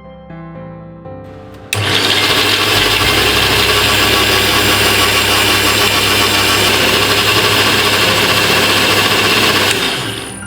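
Electric mixer grinder (mixie) switching on abruptly about two seconds in and running steadily at full speed for about eight seconds, grinding roasted chana dal, garlic cloves and spices into a dry powder, then winding down near the end. Soft background music plays before it starts.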